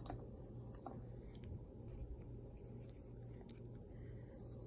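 Faint fingertip rubbing and a few light ticks as ground pepper is pinched from a small bowl and sprinkled over shredded cheese on bread, over a low steady hum.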